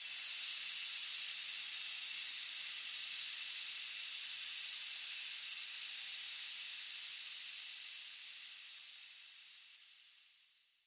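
Pressurised air being released: a steady high-pitched hiss that starts at once, then weakens over the last few seconds until it dies away.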